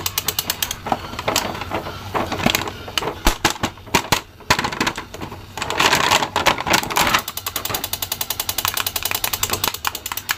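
Battery-operated crawling soldier toy rattling with rapid even clicks, about seven a second, which stop about a second in. Plastic packaging then rustles and crinkles, loudest around the middle, and the rapid clicking rattle starts again about three seconds before the end.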